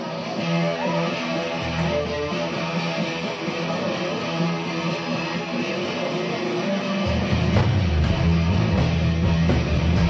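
Live indie rock band playing an instrumental passage with strummed guitars and drums. About seven seconds in, the bass and drums come in heavier and the music gets louder.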